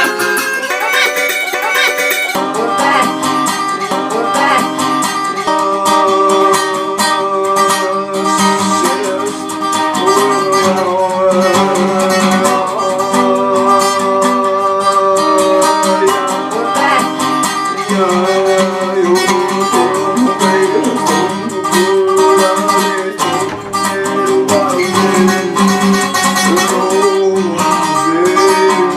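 Music led by plucked guitar, playing continuously; the low notes drop out for about two seconds near the start.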